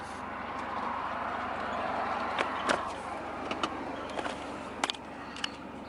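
A vehicle passing by, heard from inside a parked car: its road noise swells and fades over a few seconds. A few light clicks come near the middle and near the end.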